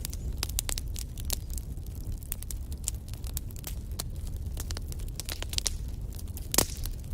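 Wood fire crackling in a fireplace: frequent small snaps and pops from the burning logs over a low steady rumble of the flames, with one louder pop about six and a half seconds in.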